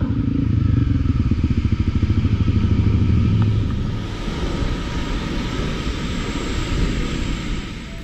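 Car-wash pressure washer running: a rapid low pulsing from the pump, with the hiss of the water jet spraying onto a dirt bike growing from about four seconds in.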